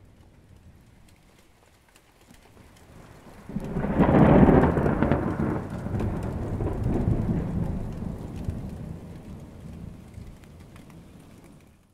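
Thunderstorm: light rain hissing with scattered drops, then about three and a half seconds in a clap of thunder breaks in and rolls on in a long rumble that slowly fades. The recording cuts off suddenly at the end.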